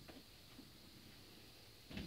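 Near silence: room tone with a couple of faint clicks, and a louder rustle beginning right at the end.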